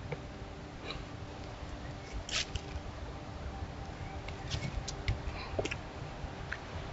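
Trail camera's steady hiss and low electrical hum, with scattered small clicks and rustles, several of them between about two and six seconds in.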